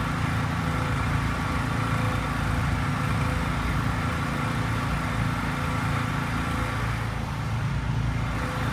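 An engine running steadily at an even speed: a low, constant hum with a few held tones.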